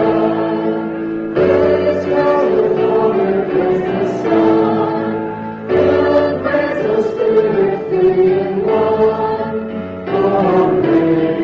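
A hymn sung by a woman's voice at the microphone with other voices, over keyboard accompaniment. It comes in phrases with short breaks for breath about every four seconds.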